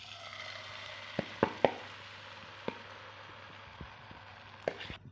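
Beaten egg batter with chopped vegetables sizzling in hot oil as it is ladled into a non-stick pan. A few sharp clicks of the metal ladle against the pan come about a second in and again near the end.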